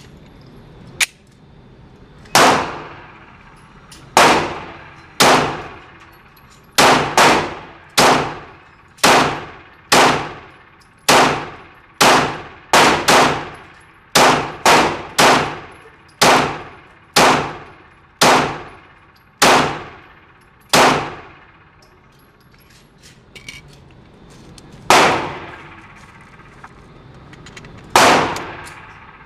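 Glock 19 9 mm pistol being fired, about two dozen shots at an unhurried pace of roughly one a second, each with a sharp crack and a ringing echo trailing off. There is a pause of a few seconds past the middle before the shooting resumes.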